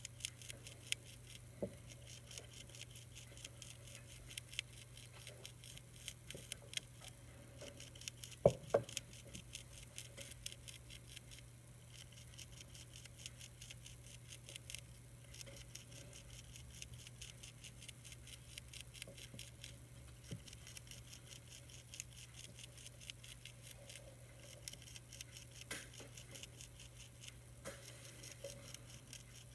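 Monarch caterpillar chewing the edge of a milkweed leaf: a fast run of faint, tiny clicks over a steady low hum, with a louder knock about eight and a half seconds in.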